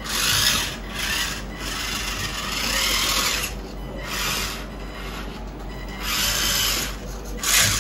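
Radio-controlled scale model tractor's small electric drive motor and gearbox whirring in stop-start bursts as it is driven with a big model trolley in tow.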